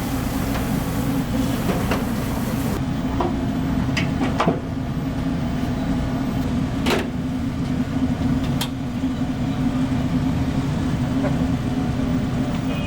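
Steady low mechanical hum, like a motor or extractor fan running, with a few sharp clinks and knocks scattered through it.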